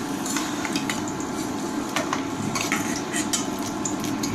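Hot ghee sizzling steadily in a stainless steel pan while a steel spoon scoops out the fried dry fruit, clinking and scraping against the pan several times.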